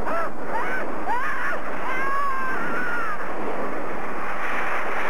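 Monster-show sound effects: a loud, steady hiss of spraying freezing gas, with high, gliding, warbling cries over it for about the first three seconds.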